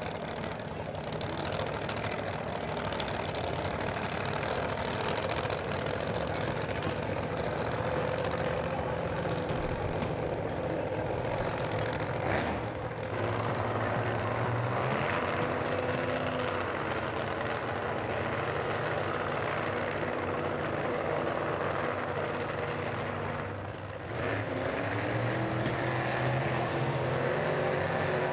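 Funny car engines running steadily, a continuous drone whose pitch shifts twice, about halfway through and again near the end.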